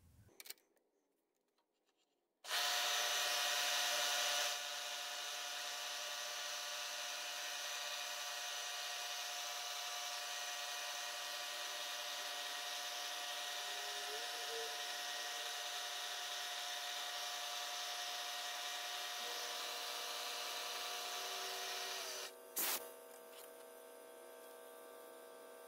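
Milling machine running and taking a light cleanup cut on a small casting: a steady motor and spindle whine that starts suddenly a couple of seconds in. A sharp click about 22 s in, after which the machine runs on more quietly.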